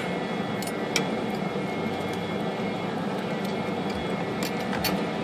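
A steady background hum with a few light metallic clicks as a part is pulled out of an IBM Selectric typewriter's mechanism.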